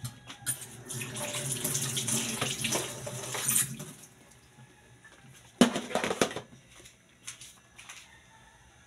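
Kitchen faucet running into a steel sink for about three seconds as a knife is rinsed under it, then shut off. About five and a half seconds in, a single brief loud clatter.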